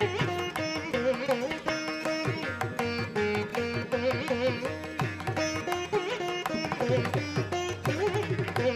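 Instrumental background music in a South Indian classical style: a plucked string melody with many sliding, ornamented notes.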